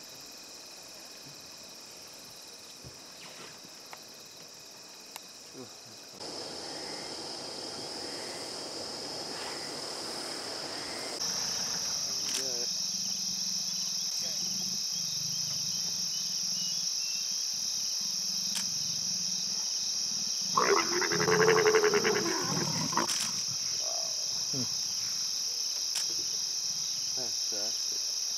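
Leopards growling during mating: one loud, rough growl lasting about two and a half seconds, about two-thirds of the way through. A steady chorus of crickets runs underneath.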